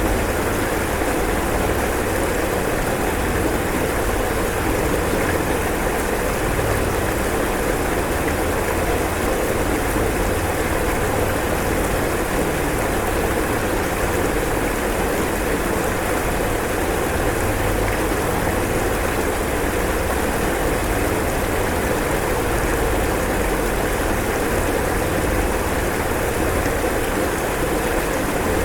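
Floodwater rushing steadily: an even, unbroken noise with a low rumble underneath.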